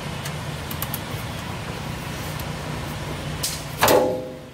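A half-inch wrench loosening the oil drain plug on a truck's oil pan: a few light clicks, then one loud metallic clank with a short ringing tail near the end, over a steady low hum.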